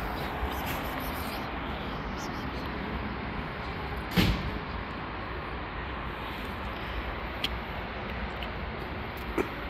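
Steady outdoor background noise, with one sharp knock about four seconds in and a couple of faint clicks near the end.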